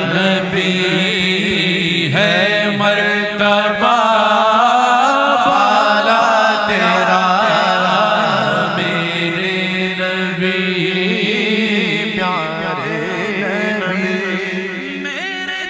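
A man singing a naat, unaccompanied by instruments, in long drawn-out melodic lines with ornamented turns, over a steady low vocal drone.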